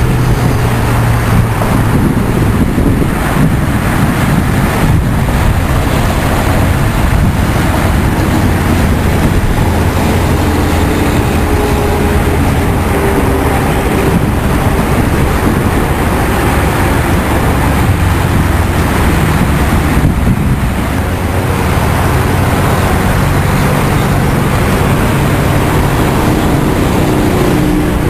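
Large truck engine running steadily, a loud low drone with road and wind noise over it.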